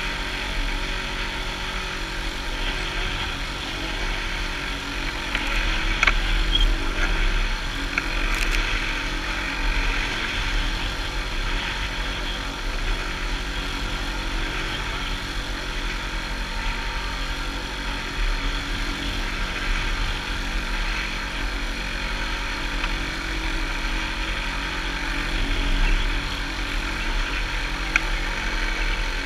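Wind buffeting the action camera's microphone over the steady rush of choppy water along a small sailboat's hull, with a few sharp clicks, about six seconds in, at eight and a half, and near the end.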